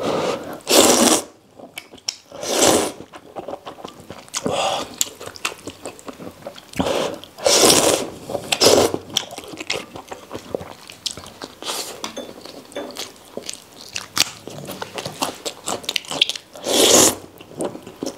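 A person slurping wheat noodles from a bowl of soup noodles: repeated short, loud slurps every second or few, with chewing and mouth smacking in between.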